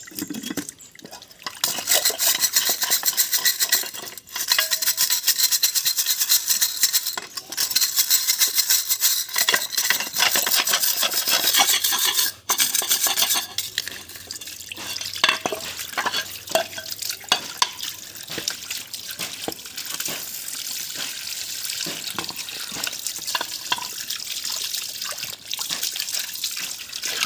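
Something being scrubbed hard with a brush in rapid strokes, with water; in the second half the scrubbing turns lighter, with scattered knocks and clicks.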